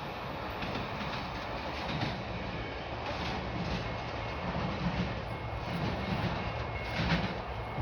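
Amtrak passenger train rolling past, a steady rush of wheel and rail noise with scattered clacks of wheels over the rail joints.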